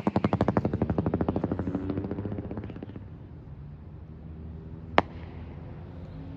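Pyroland strobe rocket's strobe effect: a fast run of sharp pops, about ten a second, fading out over about three seconds. A single sharp crack follows about five seconds in.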